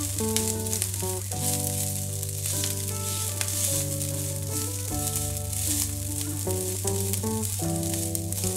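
Food sizzling and spitting in a hot frying pan, with scattered sharp ticks, over background music of held notes changing every half second or so.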